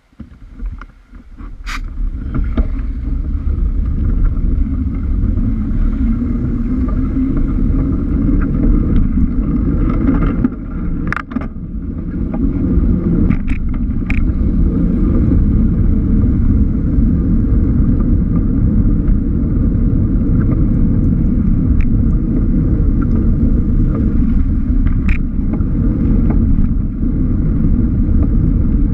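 Wind rumbling on a bike-mounted GoPro's microphone as the bicycle pulls away from a standstill and rides on, rising over the first couple of seconds to a steady low rumble. A few sharp clicks stand out over it, several of them between about ten and fifteen seconds in.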